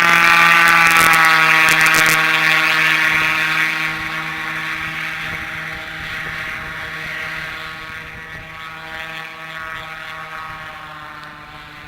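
Airboat running, a steady buzzing drone of engine and propeller that starts abruptly, is loud at first and then fades steadily over the following seconds.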